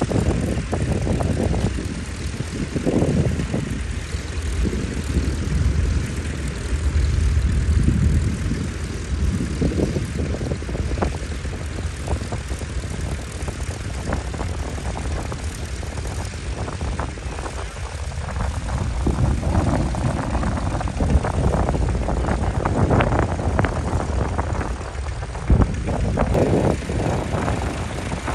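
Vintage tractor engine running, its level rising and falling unevenly.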